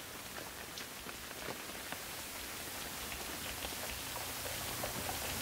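Steady rain with the scattered patter of individual drops, growing gradually louder.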